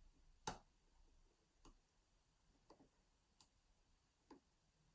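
Five quiet, sharp clicks a second or so apart, the first the loudest: a lock pick working the pin tumblers of an ABUS six-pin Euro cylinder lock under tension, with pins clicking as they set.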